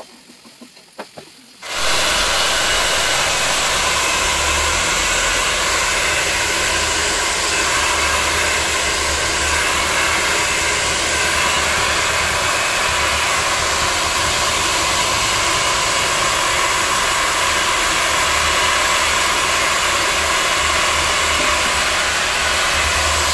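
Handheld salon hair dryer blowing steadily and loudly, cutting in suddenly about two seconds in after a quiet moment with a few small clicks.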